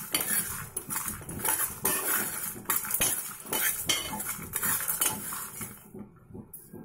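Steel spoon scraping and stirring peanuts, lentils and sesame seeds dry-roasting in a metal pan, a quick run of scrapes and clinks that fades out about a second before the end.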